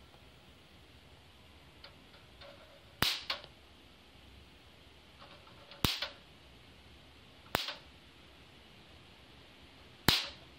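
Electric fly swatter modded with four 0.0022 µF 2000 V capacitors arcing to a screwdriver tip held in its mesh: four sharp, loud spark cracks about two seconds apart as the capacitors recharge and discharge.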